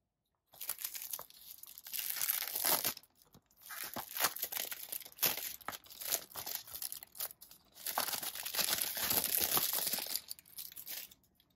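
Clear plastic shrink-wrap being torn and peeled off a Blu-ray case, crinkling and crackling in three long spells with short pauses between.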